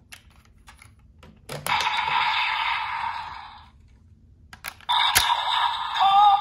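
DX Volcano Vistamp toy: plastic clicks as it is handled, then a burst of electronic sound effect from its speaker at about 1.5 s that fades over about two seconds. Just after 5 s comes a sharp snap as it is joined to the Barid Rex Vistamp, followed by the toys' electronic sound effects and voice audio.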